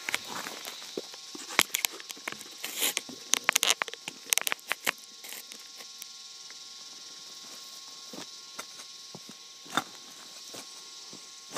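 Rustling, crackling and knocking of dry grass and leaf litter being handled close to the microphone, dense for the first five seconds or so. After that only a few scattered clicks remain over a steady high hiss.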